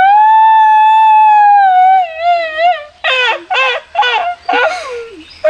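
A loud, drawn-out high-pitched wail held for about two seconds, wavering as it ends, followed by a series of short wailing cries that fall in pitch.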